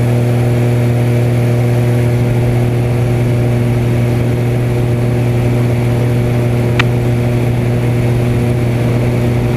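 Extra 300 aerobatic plane's piston engine and propeller in steady cruise, a constant low drone with a hiss of airflow over it, heard inside the closed cockpit. A single short click comes about seven seconds in.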